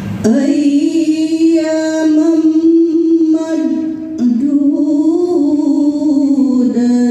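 A woman's solo voice chanting unaccompanied into a microphone, in long held notes that waver and slide between pitches, with a short break about four seconds in before she carries on a little higher.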